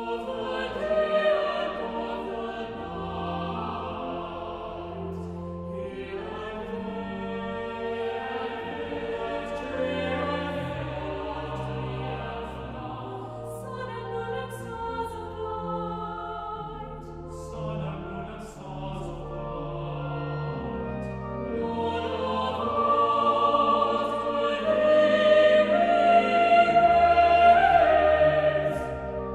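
A choir singing slow, sustained phrases in a classical church style, with short breaks between phrases and a swell to a louder climax near the end.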